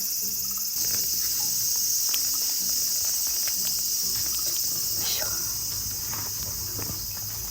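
Chorus of insects, a steady high shrill that grows a little louder about a second in, with faint scattered clicks and rustles beneath it.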